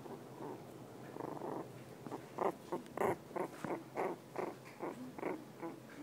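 Havanese puppy grunting as she drifts off to sleep: soft at first, then a run of short, rhythmic grunts, about three a second, from about two seconds in.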